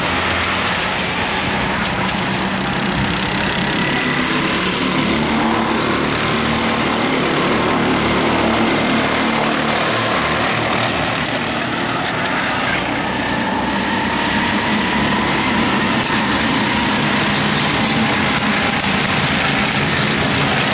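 Several rental go-karts racing round the circuit, their small engines running together and rising and falling in pitch as the karts accelerate and slow through the corners.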